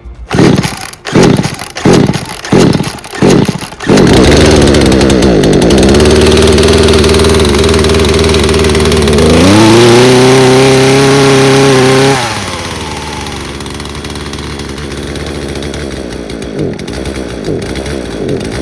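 Poulan Pro 42cc two-stroke chainsaw on its first start after a rebuild: several quick pull-start attempts with short sputters, then the engine catches about four seconds in and runs steadily. About nine seconds in it revs higher and holds there, and about twelve seconds in the sound falls away to a much quieter level. The carburetor, set at one turn out on each screw just to start it, still needs adjusting.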